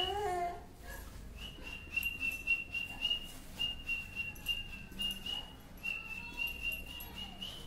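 A high, steady whistle-like tone repeating in short notes about twice a second. A brief wavering voice-like sound comes at the very start.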